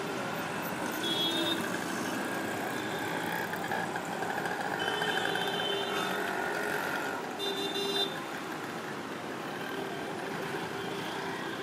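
Busy city street traffic, with auto-rickshaws and motorcycles driving past and short vehicle horn toots about a second in, around five seconds and around seven and a half seconds.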